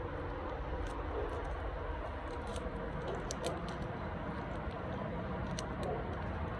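Faint scattered small clicks and ticks of hands handling a plug and tape, over a steady low background hum.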